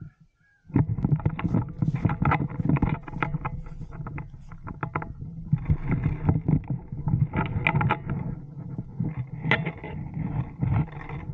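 Leaves and branches rustling and scraping against the body-worn camera and gear as the player pushes through dense undergrowth, with uneven crackling and brushing. It starts suddenly about a second in.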